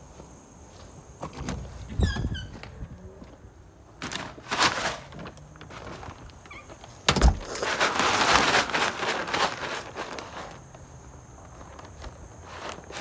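Footsteps and knocks outdoors, with a short run of falling chirps from a bird about two seconds in. A thud at about seven seconds is followed by a few seconds of loud rustling noise, the loudest part.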